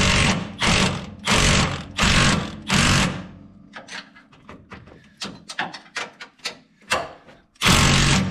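Power tool driving the bolt of a homemade rivet-nut setting fixture, run in about six short bursts, then lighter clicks and rattles, then running steadily again near the end. The rivet nut is spinning in the frame hole instead of setting, because its shank has nothing to grab in the thick frame.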